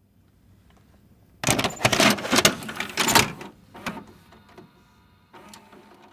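Mechanical clattering: a faint low rumble, then about a second and a half in a loud run of sharp clicks and clunks lasting about two seconds that fades away, with a short, quieter mechanical whir near the end.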